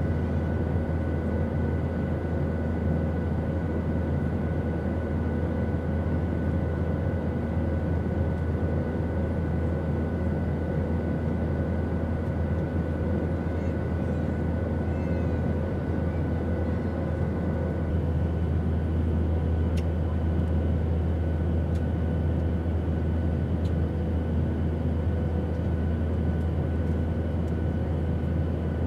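Steady airplane noise in flight: a constant low rumble and even hiss with a few faint steady whining tones. About eighteen seconds in, one whine drops out and a slightly higher one takes its place.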